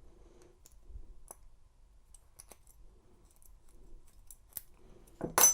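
Sparse faint metallic clicks and ticks of a steel split key ring as keys are worked off it, with one louder sharp click near the end.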